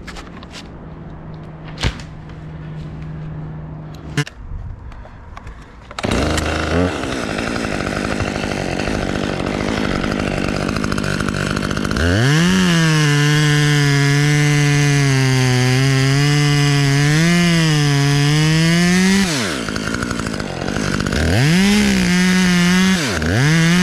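Chainsaw running at high revs, its pitch wavering as it cuts, easing off about nineteen seconds in and revving up again near the end. A few sharp clicks come before it.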